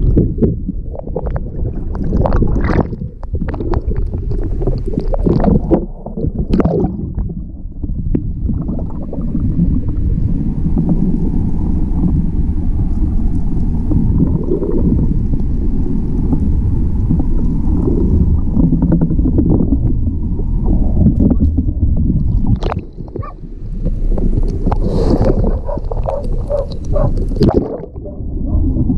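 Muffled underwater noise through a submerged camera: a steady low rumble with scattered clicks and knocks, bunched in the first few seconds and again near the end.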